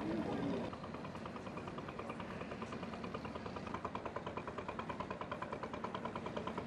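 An engine running slowly with an even, rhythmic beat of about six pulses a second, which becomes clear about halfway through.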